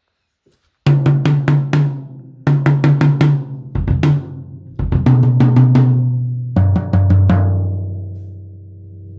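Drum kit toms played raw and undampened with the snare wires off: several quick runs of strokes that move down from higher to lower toms. Each run leaves a long ring, and the last fades out slowly near the end.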